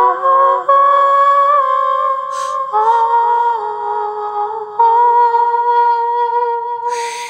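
A woman's voice humming long, held notes in wordless light-language toning, moving to a new pitch every couple of seconds.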